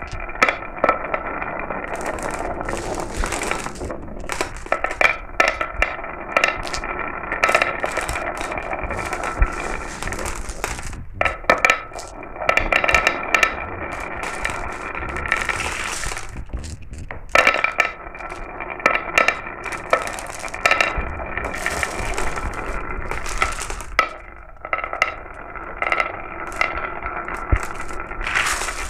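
Glass marbles rolling and clattering down a marble run: a steady rolling rattle full of sharp clicks as marbles knock against the track and each other. The sound drops out briefly three times.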